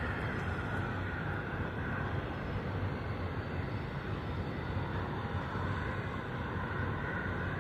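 Jet airliner engines on approach to land, a steady distant rumble with a faint whine.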